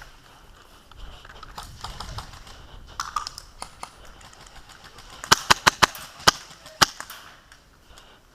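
Airsoft gunfire: a quick string of about six sharp single shots over roughly a second and a half, starting about five seconds in, after a few seconds of low rustling movement.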